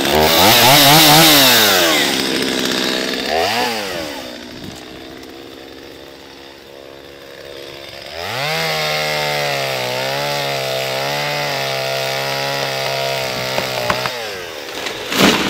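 Gas chainsaw revved up and down twice, then idling. It then runs at full throttle cutting through a tree trunk, its pitch sagging and wavering under load for about six seconds before it drops off. A sharp crack comes near the end as the cut trunk gives way.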